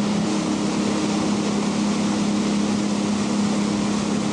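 Boat engine running steadily while under way, a constant low hum with an even hiss of wind and water over it.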